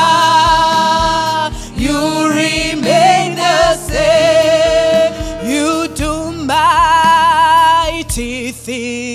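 Live gospel worship music: voices singing long, wavering held notes over a sustained band accompaniment with a low drum beat.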